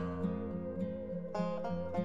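Instrumental background music of quick plucked-string notes.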